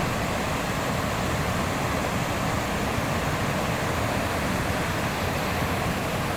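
River water rushing past in a steady, even wash of noise.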